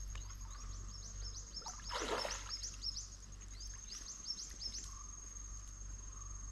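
Outdoor wildlife sounds: a rapid series of short, high, rising chirps over a steady, thin, high-pitched insect-like trill, with a short rush of noise about two seconds in.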